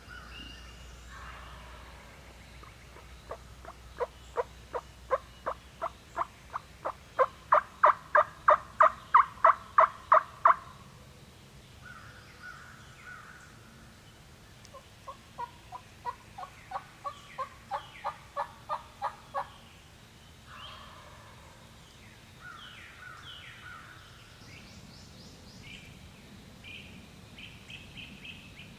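Two long series of turkey yelps, about three notes a second. The first swells louder and the second is softer. Small birds chirp afterwards.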